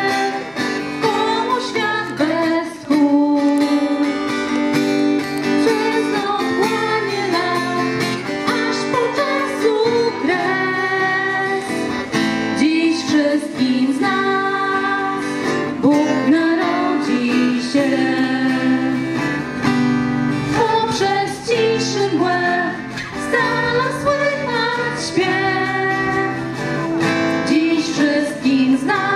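Live Polish Christmas carol played by a women's folk group: acoustic guitar strumming under a violin melody, with women's voices singing.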